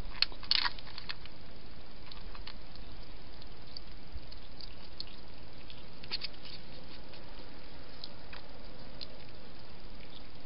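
Wild hedgehog feeding with its head in a dish, making irregular small clicking and smacking mouth sounds, clustered about half a second in and again around six seconds in, over a steady hiss.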